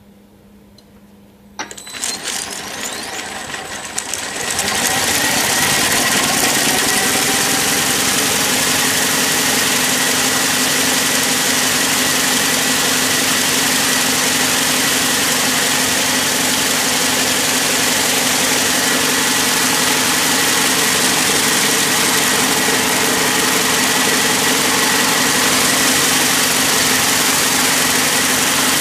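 High-speed braiding machine starting up about a second and a half in, its bobbin carriers spinning up to speed over a few seconds with a rising whine, then running steadily at full speed: a loud, continuous mechanical clatter with a steady high whine.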